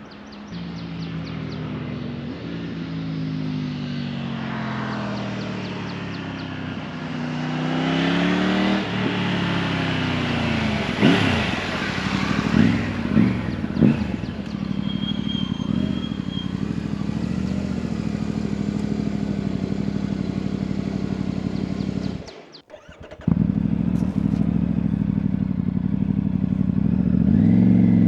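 Triumph Tiger 900 three-cylinder engine through an Akrapovic exhaust, heard from the rider's backpack. It pulls up through the gears with the pitch rising and dropping at each shift, gives a few sharp bursts of throttle, then runs steadily. It cuts out for a moment just after the middle and rises again near the end.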